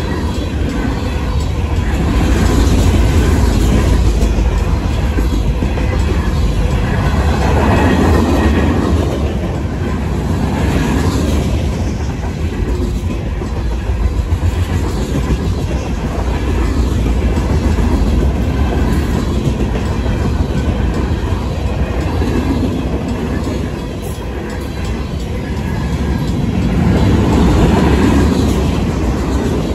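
Freight cars of a Union Pacific manifest train rolling past at close range: steel wheels rumbling and clacking over the rail joints, getting louder and softer as the cars go by. The crossing bells ring under the train noise while the gates are down.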